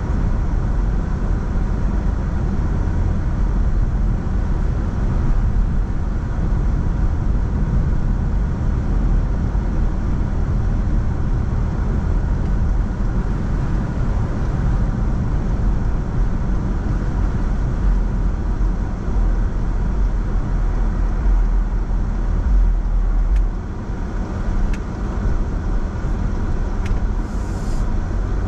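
A car driving: a steady low rumble of road and engine noise that eases slightly in level toward the end, with a few faint ticks.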